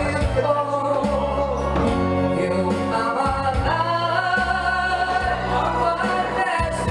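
A man singing into a microphone with held, gliding notes, over music with a bass line that changes note about once a second.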